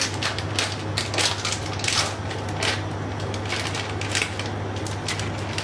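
Water heating in a non-stick frying pan on an electric hob, giving off irregular sharp ticks and crackles, about three or four a second, over a steady low hum as it comes up towards a simmer.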